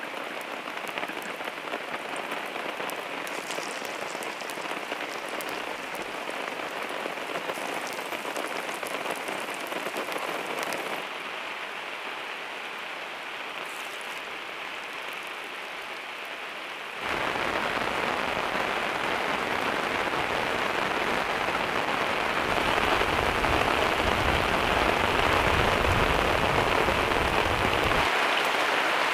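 Steady rain falling, an even hiss that changes level abruptly at several cuts and grows louder and heavier through the second half.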